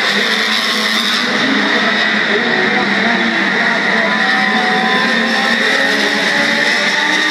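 Historic Formula One racing car engines running out of sight around the Monaco street circuit: a steady mix of engine notes whose pitch drifts slowly up and down.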